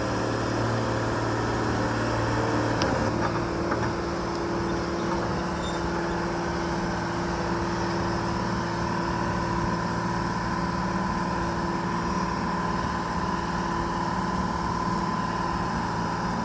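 Diesel engine of a 125B tracked excavator running steadily while the machine travels in its slow first gear; the engine note shifts about three seconds in and then holds even.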